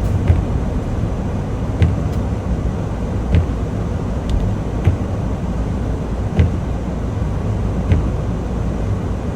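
Semi truck driving, heard from inside the cab: a steady low engine and road rumble, with a short knock about every second and a half.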